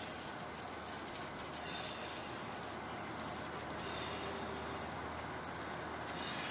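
Steady, even hiss of background noise, with no clear single source.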